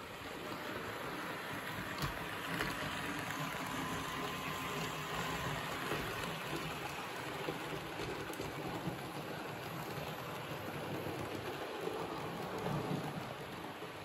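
Model train of the BR 61 streamliner and Henschel-Wegmann coaches running on the track: a steady rushing noise of wheels rolling on the rails, with a few light clicks.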